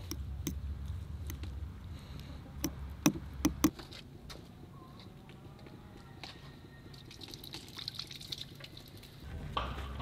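A fork stirring thick sour-cream sauce in a porcelain bowl, with wet squelching and a few sharp clinks of the fork against the bowl around three seconds in. The sound then drops to a quiet background.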